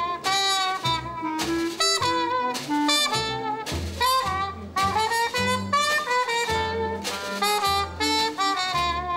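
Small acoustic swing band playing an instrumental passage: a trumpet carries the melody, with clarinet, a snare drum and a walking upright bass underneath.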